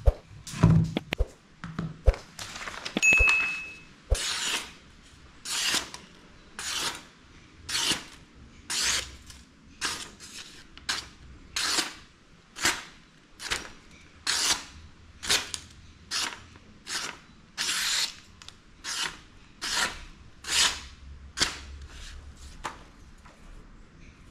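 Machete blade knocking against a wooden block a few times, then slicing into a sheet of paper over and over, a short crisp swish about every 0.7 seconds: a test of the freshly sharpened edge.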